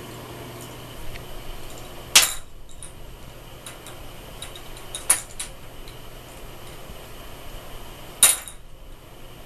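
Small hard plastic toy knocking against a bathtub as a cat bats it around: three sharp clacks about three seconds apart, with lighter clicks between.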